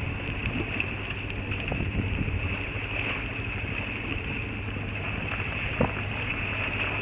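Sailboat underway: a steady low hum with wind and water noise, and a few faint ticks.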